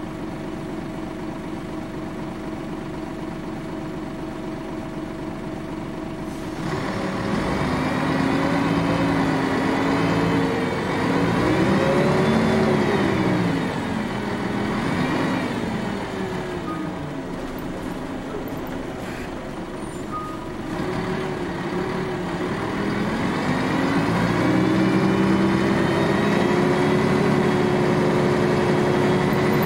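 Nissan Diesel Space Runner city bus's diesel engine, heard from inside the cabin. It runs steadily at idle, then about six seconds in the bus pulls away, the engine pitch rising and falling through several gear changes. It eases off briefly, then picks up again to a steady run near the end.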